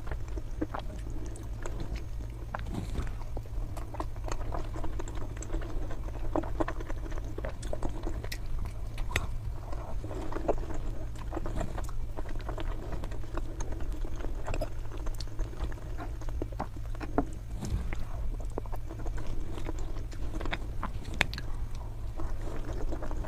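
Close-miked chewing of Kayseri yağlama, with many small irregular mouth clicks and bites over a steady low hum.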